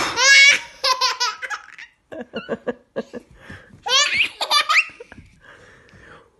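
Baby girl laughing in high, gleeful peals: one run of laughter right at the start and another about four seconds in, with short breathy gasps in between.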